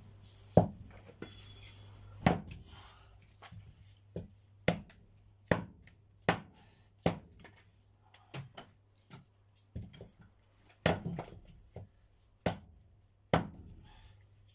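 Axe splitting firewood into kindling: a series of sharp wooden knocks, roughly one a second at uneven spacing.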